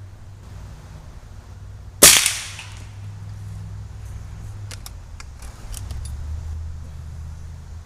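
A single shot from a .177 Gamo Socom Extreme air rifle: one sharp, loud crack about two seconds in with a short ring-off. A few faint clicks follow a few seconds later.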